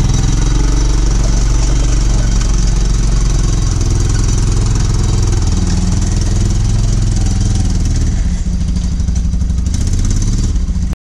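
Arctic Cat side-by-side UTV engine running under load as it tows a pallet-based platform, its pitch shifting as it pulls. About eight seconds in the engine note drops lower, and near the end the sound cuts off suddenly.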